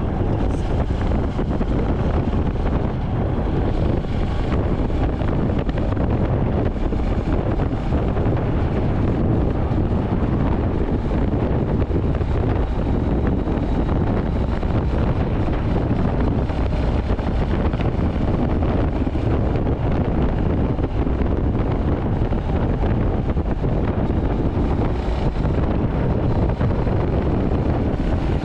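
Royal Enfield Hunter 350's single-cylinder engine and exhaust running steadily at highway speed, mixed with heavy wind noise on the microphone.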